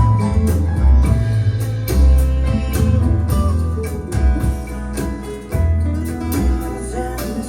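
Music with plucked guitar over a heavy, pulsing bass line, played back through Bowers & Wilkins 606 S3 bookshelf speakers with a subwoofer.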